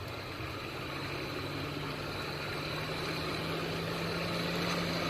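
Forge blower running steadily, forcing air into the freshly cleaned forge fire; the steady hum and rush of air grow slowly louder as the fire builds up with the increased airflow.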